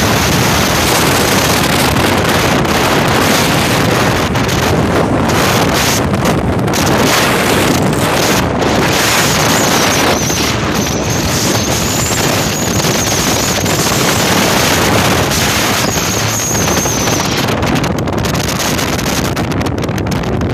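Wind buffeting the microphone over a bass boat running across open water, a steady rush of engine, hull and water noise. A faint, wavering high whine sits on top from about halfway through for several seconds.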